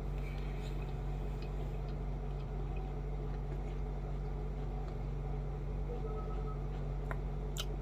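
Steady low hum of room tone, with a couple of faint clicks near the end.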